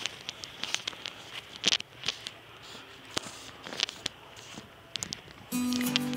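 Irregular crackling and rustling of footsteps and phone handling while walking along a corn field path, then music starts suddenly near the end.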